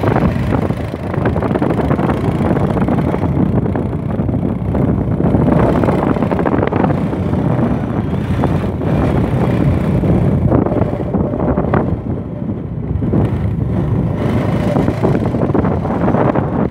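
A vehicle's engine running steadily while driving along a rough dirt track, with heavy wind buffeting the microphone.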